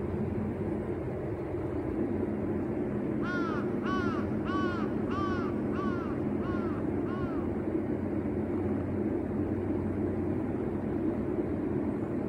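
A crow cawing, a run of about seven caws roughly half a second apart that grow fainter and stop about seven seconds in, over a steady low hum.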